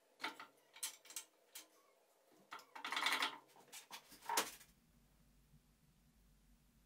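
A series of sharp clicks and knocks, with a denser burst of hiss about three seconds in and a last loud knock near four and a half seconds, followed by a faint low hum.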